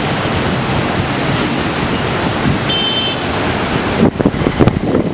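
Cyclone-force wind and rain making a loud, steady rush, with a brief high tone about three seconds in. In the last second, gusts buffet the microphone unevenly.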